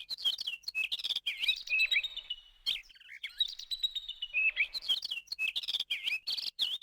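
Birds chirping and twittering in quick, overlapping calls, cutting off suddenly near the end.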